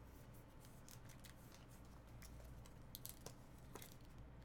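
Near silence: quiet room tone with a low steady hum and faint scattered clicks and taps, a few slightly louder ones about three seconds in.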